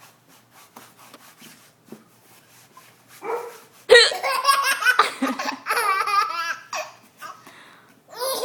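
Baby laughing: after a few quiet seconds, a burst of belly laughter breaks out abruptly about four seconds in and runs for roughly three seconds before dying down.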